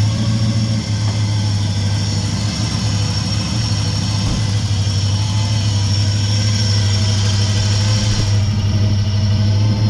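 Holden VP Commodore's 5-litre V8, freshly fitted with a Gilmer belt drive, idling steadily, with a faint steady high whine over the engine note.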